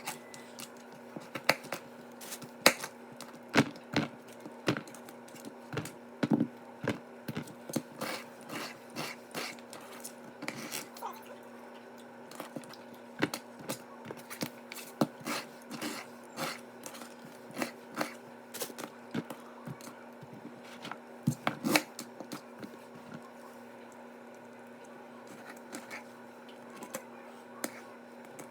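Kitchen knife chopping fruit and vegetables on a cutting board: irregular sharp knocks, sometimes in quick runs, thinning out near the end, over a steady low hum.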